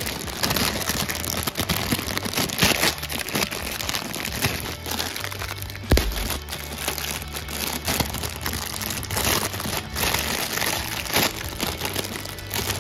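Thin clear plastic bag crinkling and rustling in the hands as a toy train tank car is worked out of it. There is one sharp knock about six seconds in.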